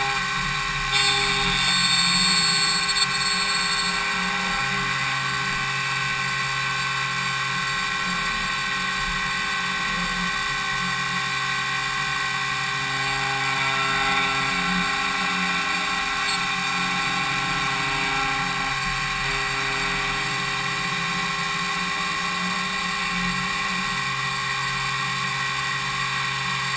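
5-axis CNC machining centre milling an impeller's blades: a steady whine of the spindle and cutter over the machine's running hum, with several steady tones. About a second in, a louder, higher-pitched cutting sound lasts roughly two seconds.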